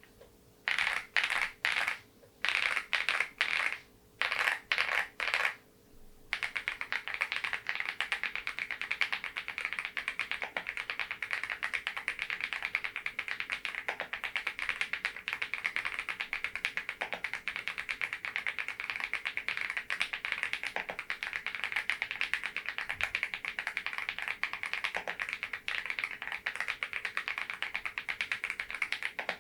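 Fast typing on a Geekstar GKG87R tenkeyless mechanical keyboard fitted with Balhae Blue tactile switches. It opens with five short bursts of rapid keystrokes with brief pauses between them, then from about six seconds in runs as one unbroken stream of fast key presses.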